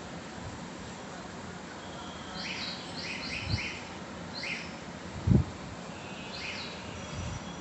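A crow giving odd, squeaky calls: about six short high notes that each rise and fall quickly, one, then three in quick succession, then two more spaced out, over steady background hiss. A dull low thump about five seconds in.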